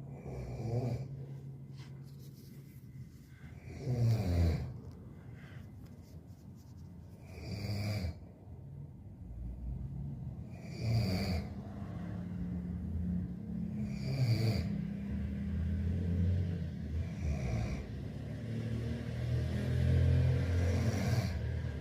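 A sleeping person snoring, with a rough snore about every three and a half seconds.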